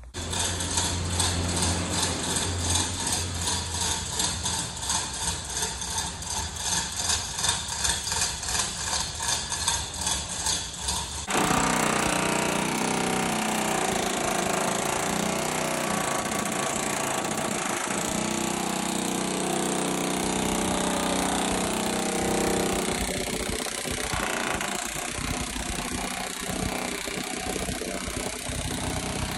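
Pneumatic air hammer with a chisel bit rattling against the sheet metal of a pickup bed side. For about the first eleven seconds it runs in short, quick pulses, then changes suddenly to a steadier, denser hammering.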